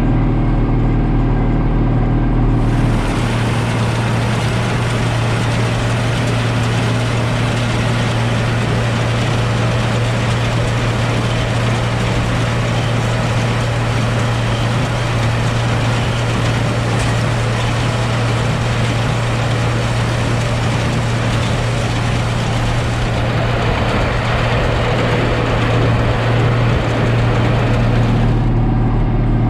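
John Deere 4055 tractor's six-cylinder diesel engine running steadily. From about three seconds in until near the end, a loud, even rushing noise sounds over it.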